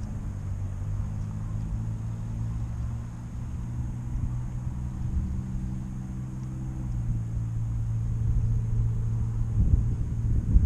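Low, steady engine hum of road traffic, with a pitch that shifts about two-thirds of the way through, over wind rumble on the microphone that grows rougher and louder near the end.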